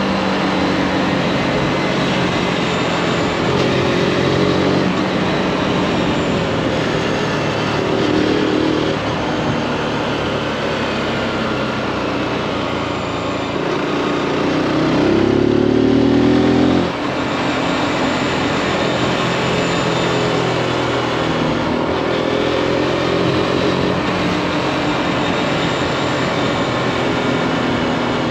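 Zontes G1's single-cylinder 155 cc four-stroke engine running on the move, over a steady rush of wind. About halfway through, the engine note climbs and gets louder for about two seconds, then drops off suddenly.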